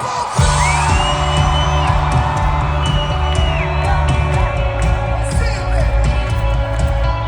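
Indie rock band playing live, the bass and drums coming in hard about half a second in, with audience members whooping and singing along.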